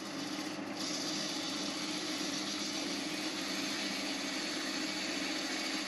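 Wood lathe running while a turning tool cuts a spinning walnut blank: a steady motor hum under an even hiss of cutting.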